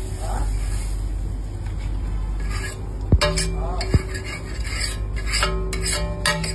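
Metal spatula scraping across a flat metal tawa griddle in a run of short rasping strokes, with two sharp knocks of metal on metal a little after the middle, over a steady low hum.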